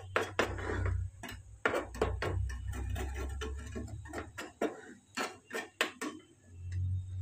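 Spatula tapping and scraping against a non-stick frying pan as diced fried potatoes are pressed and patted into a tight cake: irregular clicks and knocks, a few each second.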